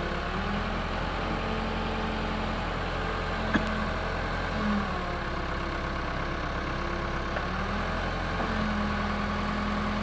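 Case backhoe loader's diesel engine running steadily, with a pitched whine that comes and goes as the backhoe arm is worked. One sharp click about three and a half seconds in.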